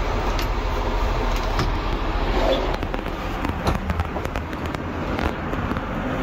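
Steady Airbus A380 cabin noise, with several sharp clicks and knocks as the lavatory door's lock is slid open and the folding door is opened.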